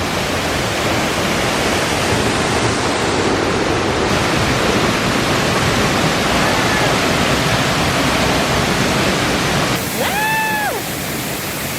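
Waterfall crashing down close by, a steady loud rush of falling water. About ten seconds in, a short high-pitched voice call rises and falls over it.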